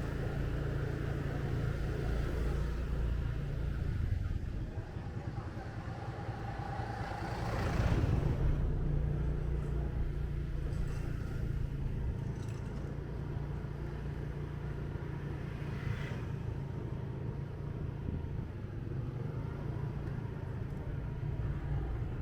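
Motorbike engine running steadily while riding through city streets, with surrounding traffic. It swells briefly about eight seconds in.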